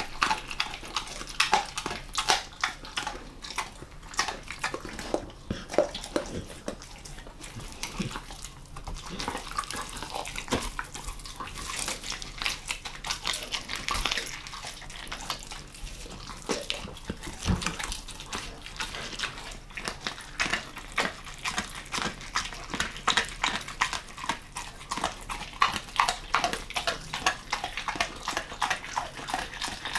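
A German Shepherd mix chewing raw monkfish: wet, sticky smacking and mouth clicks in quick, uneven bites.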